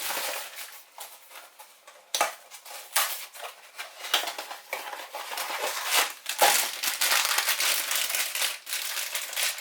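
A Funko Mystery Mini blind box being opened by hand: cardboard flaps and plastic wrapping crinkling and rustling with small clicks, quieter for about a second early in, then crinkling steadily.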